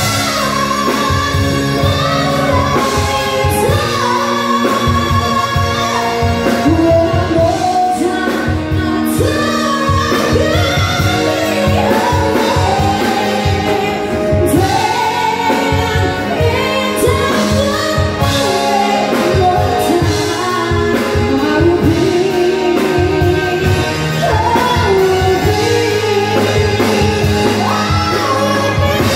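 Pop song: a woman singing a melody over a band with a steady drum beat.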